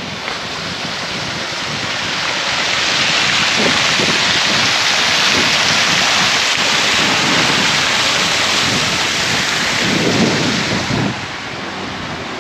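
Loud, steady rushing of fast-flowing river water over rapids. It builds over the first couple of seconds and drops off sharply near the end.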